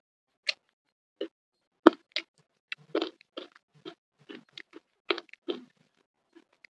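Close-miked chewing of crispy flour-fried fish and rice: irregular short wet clicks and smacks, the loudest about two seconds in, with a short pause near the end.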